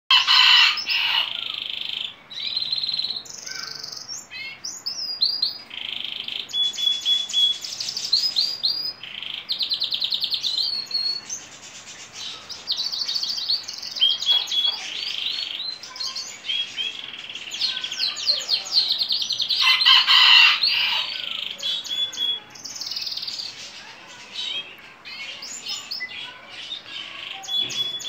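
Domestic canary singing a long, unbroken song of fast trills, rolling phrases and held whistled notes.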